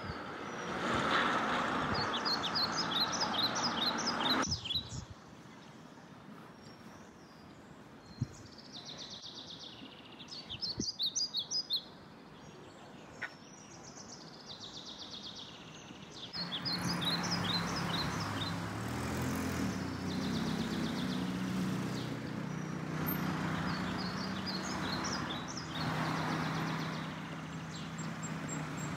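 Small birds chirping in quick, repeated short series, over the hum of road traffic that fades out after about four seconds and comes back past the middle.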